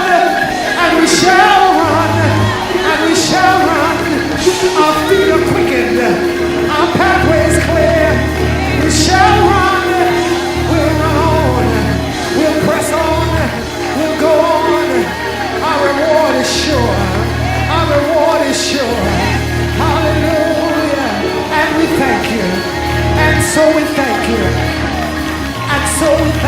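Live gospel praise music: voices singing over long, deep bass notes, with sharp high hits every couple of seconds, such as cymbals, and occasional shouts.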